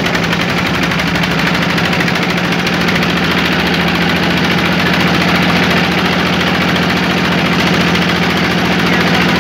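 Motorboat engine running steadily under way, an even drone with a fast regular pulse.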